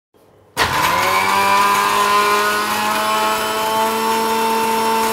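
Electric mixer grinder (mixie) switched on about half a second in. Its motor spins up quickly and then runs steadily with a whine, grinding almonds and milk to a paste in a steel jar.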